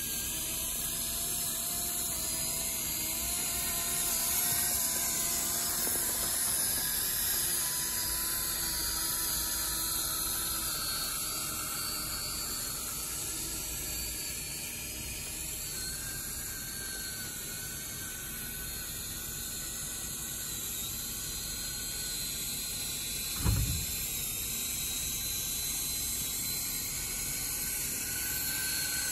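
Small electric motor and gear drive of a homemade mini RC tractor whining as it drives through snow, the pitch wandering up and down with speed. One dull thump late on.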